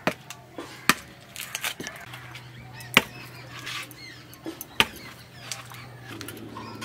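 A curved chopping blade hacking at the fibrous husk of a whole coconut on hard earth: four sharp strikes at irregular intervals, with a few lighter knocks between them, the loudest about three seconds in.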